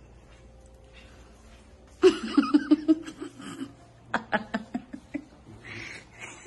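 A person laughing in two bouts of quick, rhythmic pulses, starting about two seconds in.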